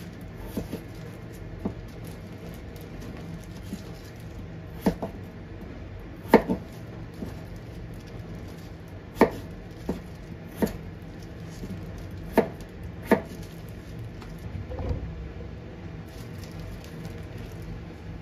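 Kitchen knife cutting peeled potatoes into chunks on a plastic cutting board: about nine sharp knocks of the blade striking the board, spaced irregularly, the loudest around the middle.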